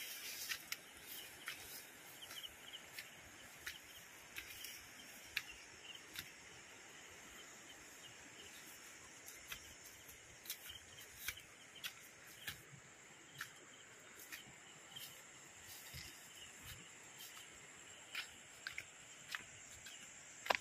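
Faint outdoor ambience: insects keep up a steady high drone, with scattered light ticks and rustles from footsteps through grass and low weeds.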